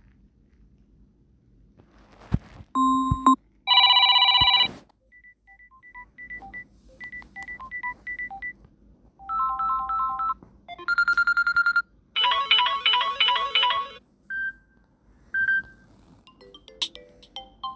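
Samsung Galaxy A03 ringtones playing one after another, each a short electronic chime, beep run or trill lasting only a second or two before the next. About two seconds in comes a click; after the mid-point there is a fast warbling trill; a new melody starts near the end.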